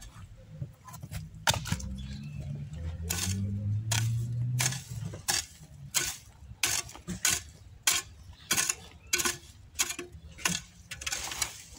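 A garden hoe chopping into the soil in a steady rhythm, about three strikes every two seconds. A low hum rises in pitch a few seconds in.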